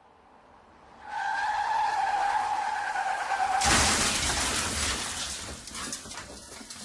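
Car crash sound effect: tyres screech for about two and a half seconds, then a loud crash of impact, followed by debris clattering and settling as it fades.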